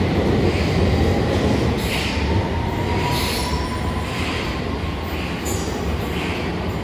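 London Underground S Stock train pulling out of the station and running off down the tunnel, its rumble slowly fading as it draws away. A faint rising whine comes through partway in.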